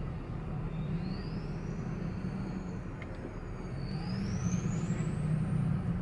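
Car interior noise while creeping through slow traffic: a steady low engine and road hum. Twice a faint high whine rises in pitch.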